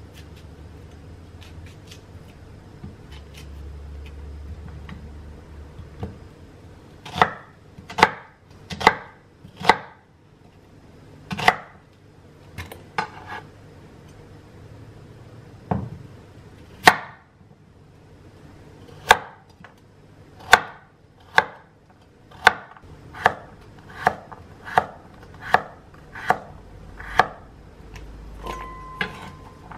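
Chef's knife chopping vegetables on a wooden cutting board: onion, then carrot cut into rounds. A few light taps at first, then sharp single knocks of the blade on the board, irregular at first and later a steady run of a little more than one a second.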